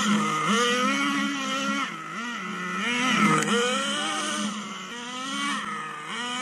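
Two-stroke nitro glow engine of a 1:10 HSP RC car running hard, its high, buzzing note dipping and climbing again several times as the throttle is eased and reopened while the car drives.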